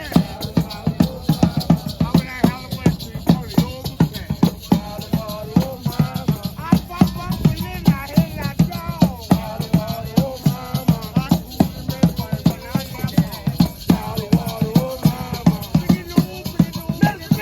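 Mardi Gras Indian street-parade percussion: drums and rattling hand percussion beaten in a fast, steady rhythm, with voices chanting over it.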